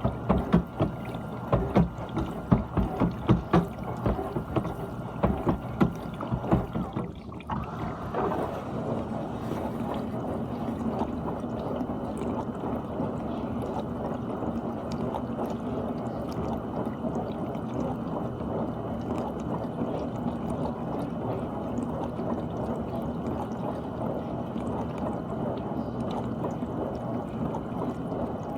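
GE dishwasher running its wash: water sloshes and splashes in irregular bursts with a steady whine at first. After a brief drop about seven seconds in, it settles into a steady rush of spraying water over a low pump hum.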